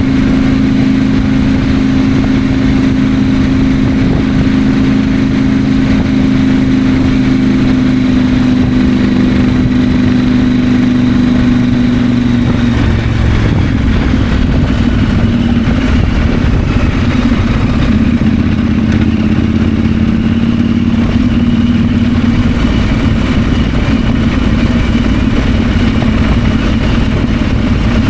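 KTM 890 Adventure's 889 cc parallel-twin engine running steadily while riding. The engine note changes about halfway through and holds steady again afterwards.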